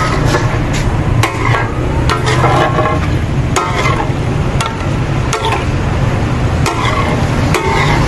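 Two metal spatulas clacking and scraping on a large flat tawa griddle at irregular strikes, about once or twice a second, as liver and gizzard pieces are stirred and fried down in yogurt, with frying sizzle over a steady low rumble.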